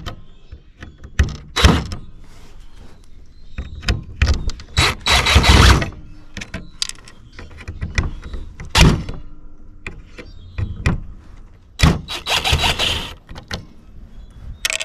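Hands and tools working apart a scrapped temperature unit to get at its circuit board: a run of sharp knocks and clunks, with longer scraping and rattling about five seconds in and again near the end.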